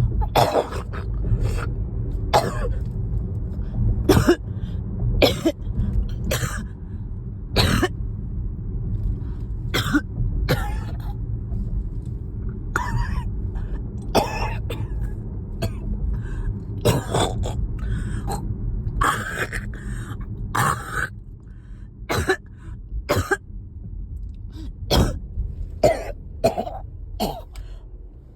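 A person coughing over and over in a long, irregular fit, mixed with throat clearing: phlegm stuck in the throat. A steady low rumble of the car's cabin runs underneath.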